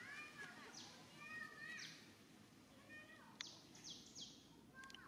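Faint animal calls: a series of short, high, arching chirps and squeaks, a few near the start and more about a second and a half in, with quicker sharp chirps around a second, two seconds and four seconds.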